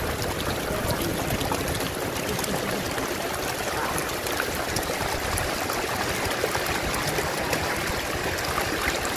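Shallow floodwater running and trickling over a dirt road, a steady rushing close by, with faint small ticks and splashes.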